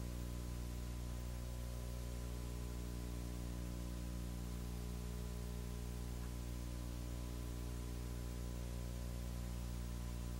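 Steady electrical hum with a row of overtones, under an even hiss. It is the soundtrack's background noise only, with no speech or other sound.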